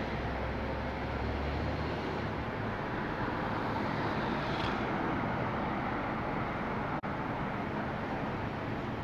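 Steady city street traffic noise from passing vehicles, with a low engine hum in the first couple of seconds and a brief break about seven seconds in.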